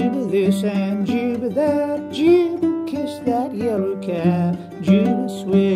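Loon Goatar, a homemade guitar with a goatskin resonator in a modified open banjo tuning (gGDGDF), played in old-time clawhammer (frailing) style: a steady, rhythmic run of struck, banjo-like plucked notes.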